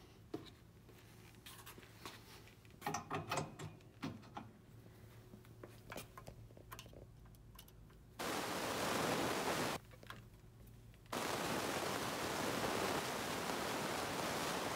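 Faint clicks and small knocks of a plastic lab valve and its fittings being handled and fitted. About eight seconds in, a loud, steady hiss starts abruptly, breaks off for a second or so, then starts again and runs on.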